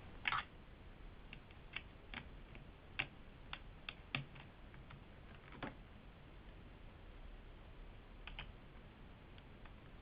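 Faint, irregular sharp clicks of a Phillips screwdriver working small screws out of a netbook's plastic case, about a dozen, most of them in the first half and a pair near the end.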